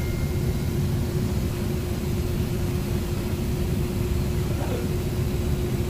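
Steady machine hum: one constant tone over low, even rumbling noise.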